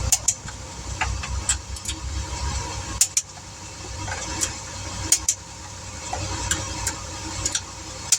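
Click-type torque wrench tightening wheel lug nuts to 100 foot-pounds: sharp metallic clicks, several in quick pairs, as each nut reaches torque. A vehicle engine idles underneath as a low rumble, heavier in the first few seconds.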